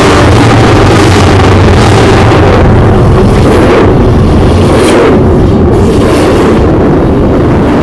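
Intermodal freight train passing at very close range, locomotive trucks and then container well cars rolling by. The noise is so loud that it overloads the camcorder's microphone into a constant distorted rumble, with a few sharper knocks in the second half.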